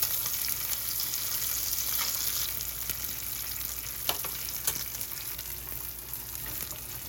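Beef steak and crushed garlic frying in oil in a cast-iron skillet: a steady sizzle, with two sharp clicks a little after four seconds in.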